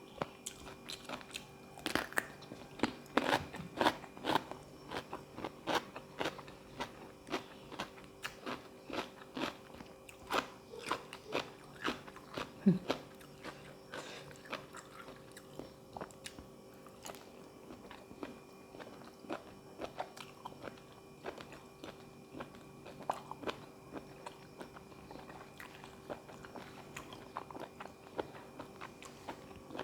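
A person eating a spicy Thai seafood salad with vegetables up close: crunchy bites and chewing that come every second or so, busier and louder in the first half.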